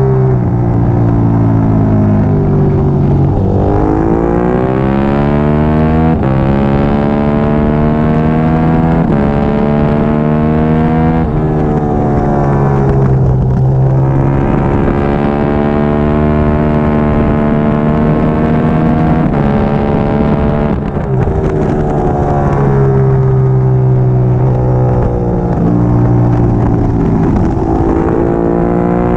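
Triumph Daytona 675R race bike's three-cylinder engine at racing speed, revving hard and climbing in pitch through the gears with quick breaks at each upshift. Twice the revs fall away through a run of downshifts, then the engine pulls up through the gears again.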